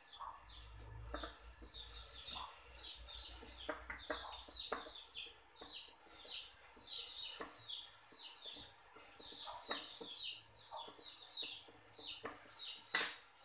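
A bird chirping over and over, short high chirps falling in pitch, several a second, with faint knocks and rustles as chicken feet are tossed in dry frying flour in a bowl.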